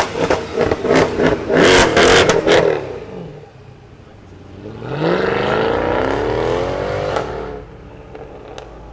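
Mercedes-AMG C63 saloon's V8 exhaust revved hard in quick blips, with sharp crackles, for the first couple of seconds. After a lull, an engine pulls away about five seconds in, rising steadily in pitch, and fades after about two seconds.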